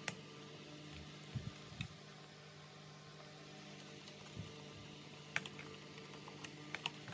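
Scattered light clicks and knocks of the plastic housing of an Electrolux UltraOne vacuum cleaner being handled and its wiring pulled, sped up to double speed, over a faint steady hum.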